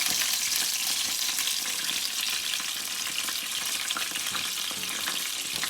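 Hot butter and oil sizzling and crackling in a cooking pot, a steady frying hiss with many small pops.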